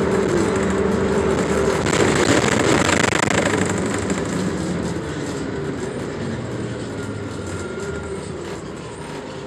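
Cabin noise inside a Neoplan AN460 articulated bus under way: engine and road noise with a steady whine at first and a louder surge two or three seconds in, then growing gradually quieter.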